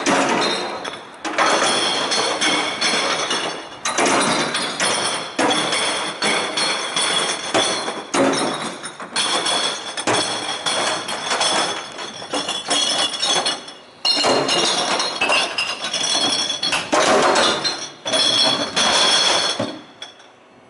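Glass bottles and jars clinking and clattering as they are dropped by hand into the sorting compartments of a glass-recycling kerbside truck, sorted by colour. The clatter comes in runs of a few seconds with short pauses between them.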